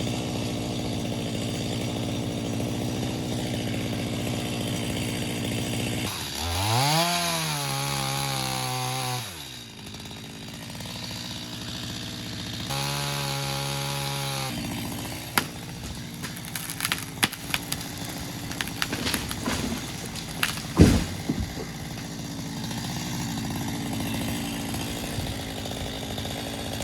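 Stihl MS250 two-stroke chainsaw running steadily through the back cut of a Japanese cedar. About a quarter of the way in it revs up and drops back, with another short high burst about halfway. After that comes a run of sharp cracks as the hinge wood snaps and the tree goes over, with a loud crash about three-quarters through, while the saw idles underneath.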